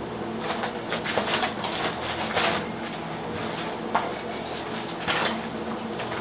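Packaging being handled by hand: crinkly rustling in bursts for the first couple of seconds, then a few sharp clicks or knocks.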